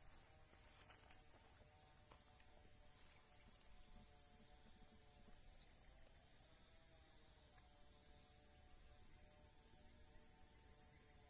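Faint, steady high-pitched insect chorus droning without a break, with a few light clicks in the first second.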